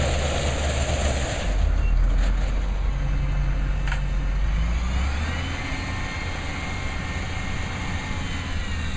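Diesel engine of a cotton module hauler truck running while the bed unloads a cotton module, with a hiss that cuts off about a second and a half in. Around the middle the engine note rises as it revs up, and a faint whine runs on over the rumble after that.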